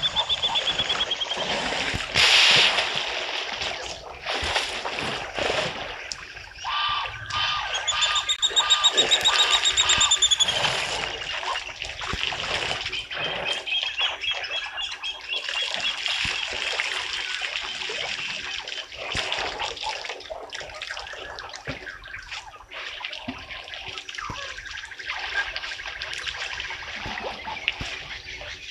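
Water splashing and trickling as elephants draw it up and squirt it with their trunks while drinking. Birds give rapid trilling calls at the start and again, louder and longer, about a third of the way through.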